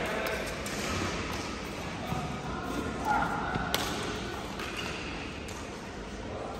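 Badminton rally: sharp racket strikes on a shuttlecock, the sharpest about three and a half seconds in, over the voices of players.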